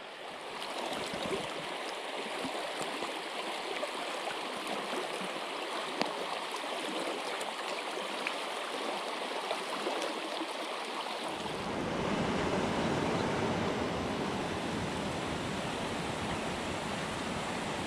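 Small mountain creek running over rocks, a steady rushing of shallow water. About eleven seconds in a deeper rumble joins, and the sound grows a little louder.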